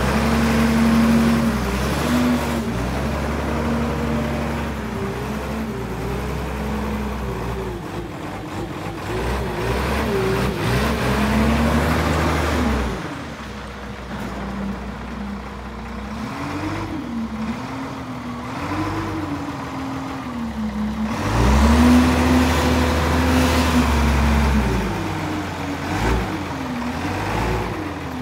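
Diesel engine of a Kalmar DCE 70-35E4 heavy forklift running and revving up and down as the machine drives about, its pitch rising and falling again and again. It drops to a lower, quieter running from about 13 s and comes back up strongly around 22 s.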